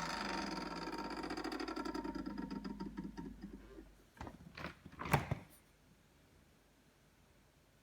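Samsung refrigerator's evaporator fan rattling fast against ice built up in the fan compartment. It slows and dies away over about four seconds. A few sharp knocks follow, then it goes quiet.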